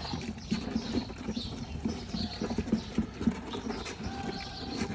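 A group of puppies eating together from one shared pan: a dense, irregular run of small wet smacks and clicks as many mouths feed at once.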